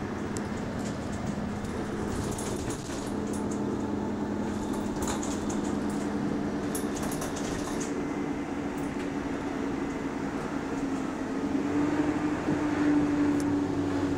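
Arriva London T-class double-decker bus heard from the upper deck on the move: the engine and its radiator cooling fan give a steady drone with humming tones. About eleven seconds in a higher humming tone swells up and the sound gets louder; light rattles come through now and then.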